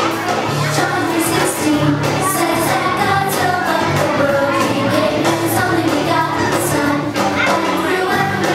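Upbeat pop-style song with a group of voices singing over a steady bass line and drum beat, played for the puppets to mime to.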